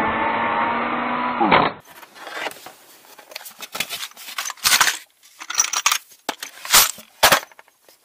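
Cordless drill running steadily as it bores into an epoxy-filled (JB Weld) bolt hole in a cast aluminium crankcase, then winding down in pitch after about a second and a half. Then metal taps clink and rattle in a plastic tray as they are sorted through in a toolbox drawer, with a few sharper knocks near the end.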